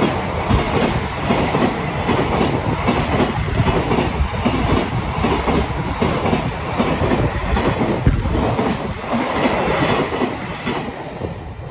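Freight train of empty container flatcars passing at speed, its wheels clattering over the rail joints in a repeated clickety-clack over a heavy rumble. The clatter starts to die away near the end as the last cars go by.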